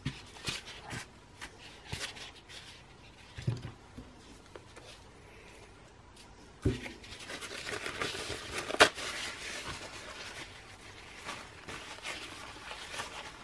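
Workbench handling noises from trolling motor parts and a paper towel: scattered light clicks and knocks, then a stretch of paper rustling about seven seconds in, with one sharp click near the middle of it.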